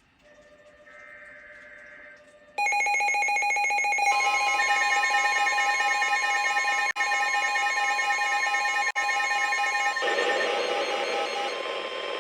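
Emergency Alert System tones on NOAA Weather Radio, announcing a new warning. A short burst of SAME data header screech comes about a second in. About two and a half seconds in, a loud alert tone starts: rapid pulsing at first, then a steady chord of several tones, with a hiss of static rising under it near the end.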